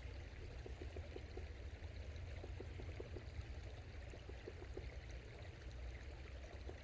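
Small forest creek trickling steadily, with little gurgles, over a low steady rumble.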